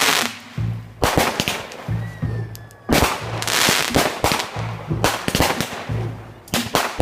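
Fireworks going off in quick succession: sharp bangs and dense crackling bursts, the biggest barrage about three seconds in.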